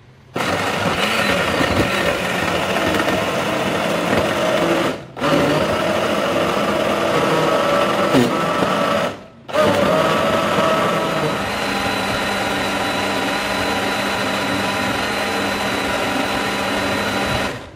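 Personal cup blender running, its cup pressed down onto the motor base, blending chunks of jackfruit and raisins in milk. The motor stops briefly twice, about five and nine seconds in, runs at a steadier pitch through the second half, and cuts off near the end.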